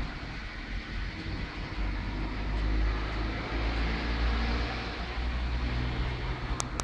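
Thunder rolling after a lightning strike: a long, low rumble that swells about halfway through, over a steady rushing background. A short click comes just before the sound cuts off.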